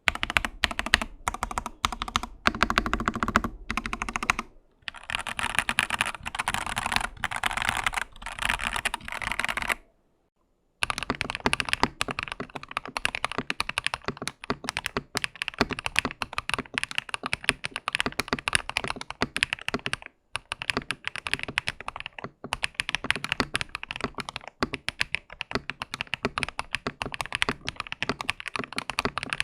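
Typing sound test on a Lychee G80 hot-swap mechanical keyboard: fast, continuous key presses on Gateron CJ switches, then after a brief silence about ten seconds in, steady typing on KTT Rose switches.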